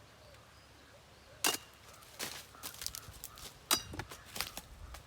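A run of irregular sharp clicks and snaps, about a dozen in a few seconds, the loudest about a second and a half in and again near four seconds.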